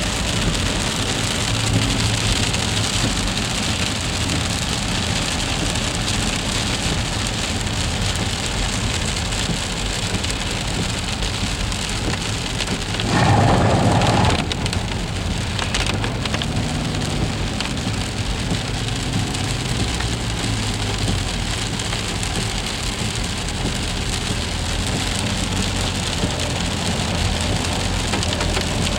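Freezing rain falling steadily during an ice storm, with a louder noise lasting about a second and a half roughly halfway through.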